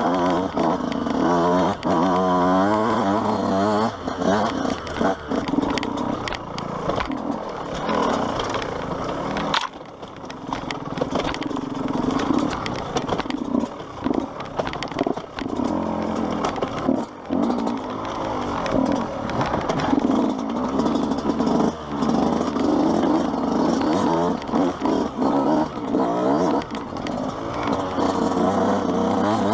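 Yamaha YZ125's single-cylinder two-stroke engine revving hard and constantly rising and falling in pitch as the throttle is worked over rough trail, briefly dropping off about ten seconds in before pulling up again.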